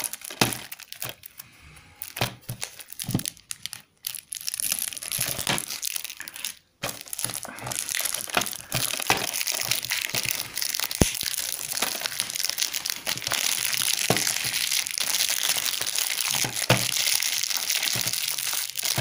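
Plastic shrink-wrap being picked at and peeled off a Blu-ray case, crinkling and crackling. It comes in short scattered bursts at first, then turns almost continuous from about seven seconds in.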